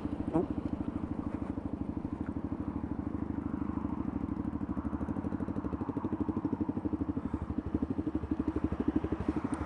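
Motorcycle engine and exhaust running at a steady, even pace while riding, with a regular rapid pulsing.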